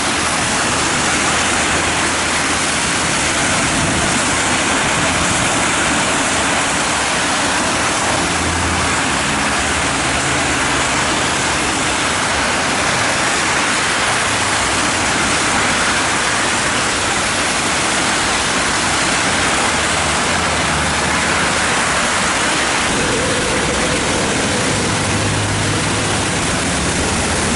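Steady noise of dense, slow motorway traffic on a rain-soaked road: tyres hissing on wet asphalt over the hum of many engines, with a heavier engine drone swelling briefly now and then.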